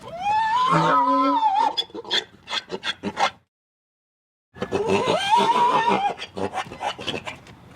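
Donkey braying twice: each bray opens with a long pitched call and breaks into a run of quick, rasping hee-haw strokes, with a pause of about a second between the two brays.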